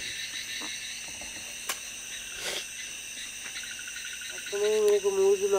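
Crickets and other night insects chirring steadily in several high, unbroken tones. A man's voice starts near the end.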